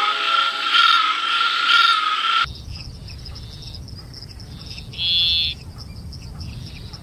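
Male tree frogs calling. First comes a loud call repeated about once a second. It stops abruptly after a cut, and a second small tree frog gives one short call about five seconds in, over a steady high-pitched background chorus.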